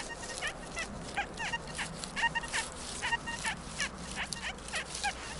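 Metal detector signal tones: repeated short beeps of one fixed pitch, with some sliding tones, coming irregularly as the coil is swept over targets in the ground. Light clicks and rustling run underneath.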